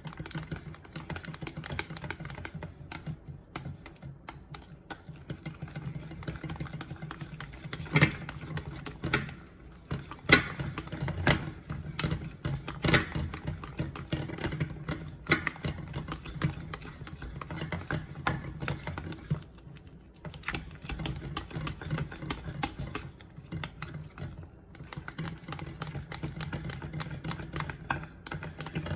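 Rapid, irregular clicking and tapping of kitchen utensils at work, with a few louder knocks about eight, ten, eleven and thirteen seconds in.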